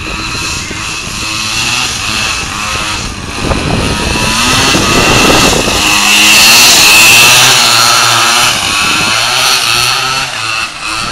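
The small 49cc two-stroke pocket bike engines of a motorized Huffy Slider drift trike buzz at high revs as it rides past. The sound grows louder to a peak about six seconds in, then fades as the trike moves away, the engine pitch wavering with the throttle.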